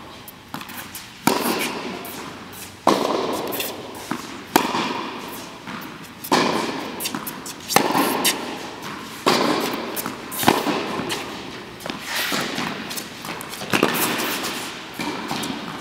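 Tennis balls struck back and forth with racquets in a groundstroke rally, the near player's an Angell TC95 strung with polyester string at 50 lb: a sharp pop of ball on strings about every one and a half seconds, with fainter bounces between. Each hit echoes in a large indoor tennis hall.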